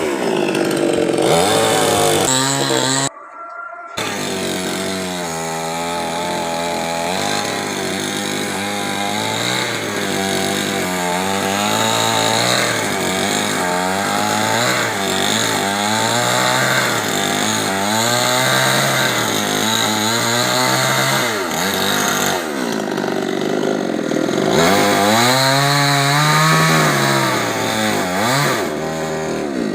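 Chainsaw running and cutting, its engine pitch rising and falling as it works under load, with a short break about three seconds in.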